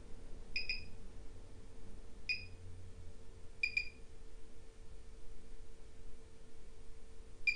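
CLAREBLEND Mini microcurrent device's two handheld probes beeping: four short, high beeps a second or more apart, two of them doubled because the probes are not beeping in unison.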